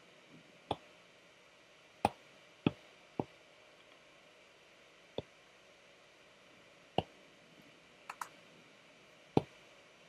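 Apple Pencil tip tapping on an iPad's glass screen: about nine short, sharp clicks at irregular intervals, two in quick succession near the end, over a faint steady hiss.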